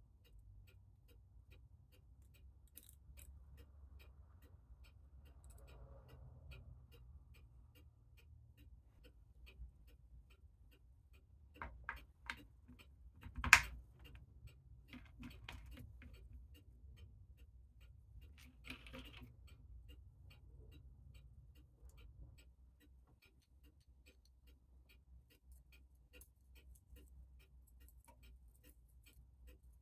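A mechanical clock ticking steadily and faintly, with metal clicks and clacks as a steel mainspring sleeve is handled and fitted into a mainspring winding tool. The loudest sound is a single sharp clack about halfway through.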